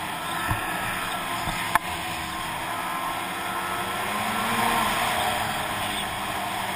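Snowmobile engine running at trail speed with a steady rush of wind and track noise; the engine pitch rises and then eases off about four to five seconds in. A single sharp click sounds a little under two seconds in.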